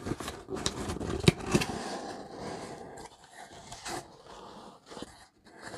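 Cardboard mailer box being opened by hand: the lid and flaps scraping and rubbing, with a few sharp clicks, busiest in the first two seconds.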